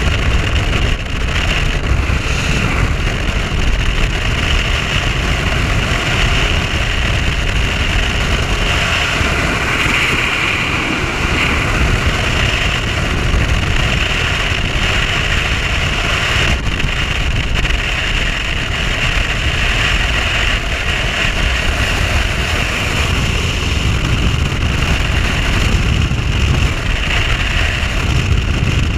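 Bass boat under way at speed: a Mercury OptiMax 150 two-stroke outboard running steadily, mixed with wind buffeting the microphone and water rushing past the hull.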